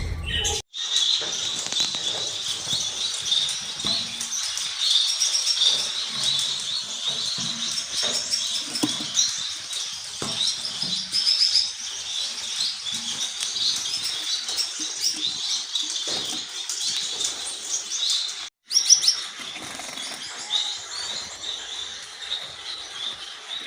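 Many parrots chirping and chattering together, a dense, unbroken stream of short high chirps, cut off briefly twice.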